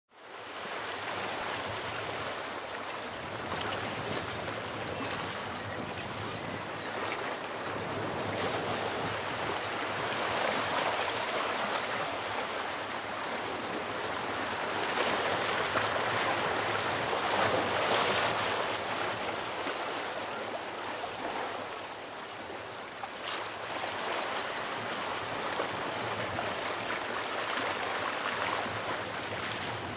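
Sea surf washing and breaking against shoreline rocks: a steady rush that swells louder a few times, most in the middle, then eases.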